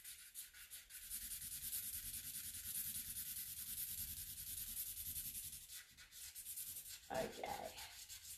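Fast back-and-forth scribbling of a yellow colouring pencil on paper, a fine scratchy rasp made of many quick strokes, as it fills in a drawn circle. A short vocal sound comes in briefly near the end.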